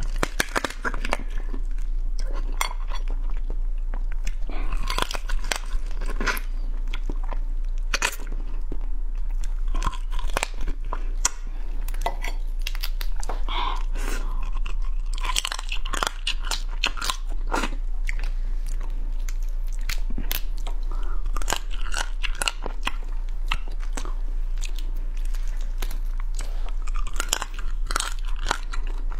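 Close-up crunching and chewing of crab: crab legs and shell bitten and cracked between the teeth and chewed, with many small crackles throughout. A steady low electrical hum runs underneath.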